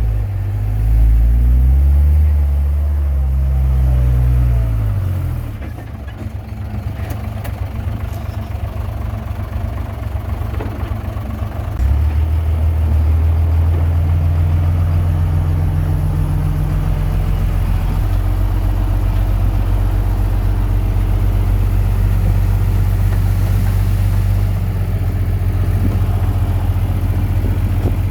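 Komatsu D21P bulldozer's diesel engine working: it revs up and down over the first few seconds, eases off, then about twelve seconds in it runs at a steady higher speed under load and drops back near the end.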